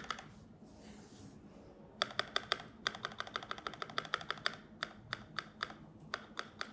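Typing on a freshly assembled Keychron V1 mechanical keyboard fitted with KTT Strawberry linear switches: a quick run of keystroke clacks starting about two seconds in, thinning to scattered presses near the end.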